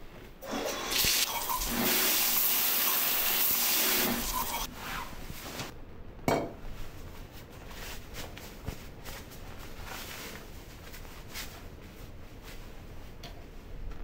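Shower water spraying hard for about four seconds after the valve is turned, then cut off. Afterwards quieter scattered clicks and knocks at the bathroom sink, with one sharper thump about six seconds in.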